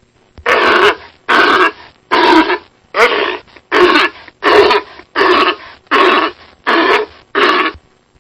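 Sea lion barking: ten hoarse barks in a steady rhythm, about one every three-quarters of a second.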